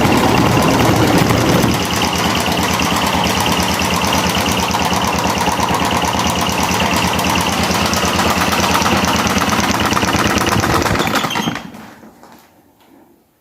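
Electric fan with a broken propeller running, a loud noise with a fast, even clattering rhythm. Its sound changes a little about two seconds in, then it fades out over about a second and a half near the end as it winds down.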